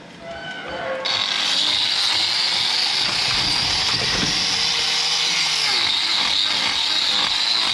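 A power tool starts running about a second in and runs steadily with a high whine.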